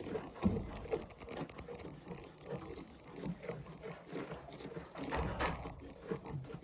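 Goats moving about: light hoof taps and rustling, with a louder scuffle about five seconds in.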